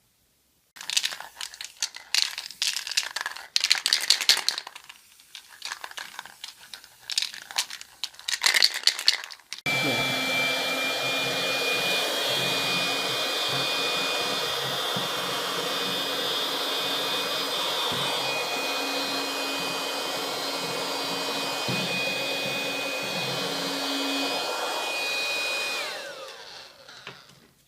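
A homemade plastic-jar vacuum cleaner's small electric motor and fan running with a steady high whine. It switches on about a third of the way in, after some irregular rustling and clattering handling noise, and spins down with a falling whine near the end.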